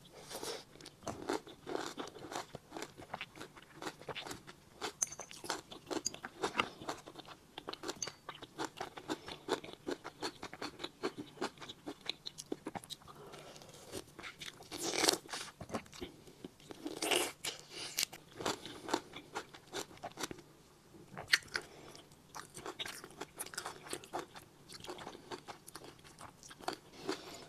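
Close-up mouth sounds of a person biting into and chewing fresh lime: many short wet crunches and smacks, with a few louder bites about halfway through.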